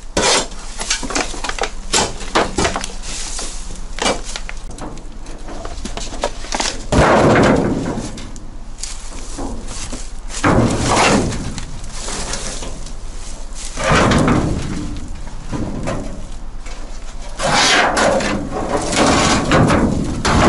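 A shovel scraping and clinking through metal scrap and debris, then a large rusted steel roofing sheet being dragged and levered up, with harsh scrapes and loud bangs, the biggest about seven, ten and fourteen seconds in and a longer rough stretch near the end.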